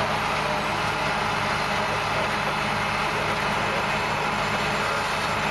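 Large John Deere four-wheel-drive articulated tractor's diesel engine running steadily at close range, with an even low drone.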